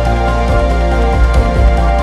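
Instrumental music: held chords over a strong, deep bass, steady in loudness.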